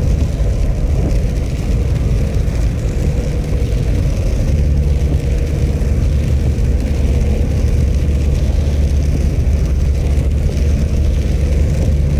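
Steady drone of a car being driven, heard from inside: a deep engine and drivetrain hum with tyre noise from a wet road surface.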